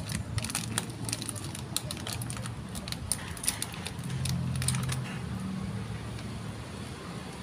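Crunchy snack chips being chewed close to the microphone: irregular crisp crunches, with a low steady hum underneath.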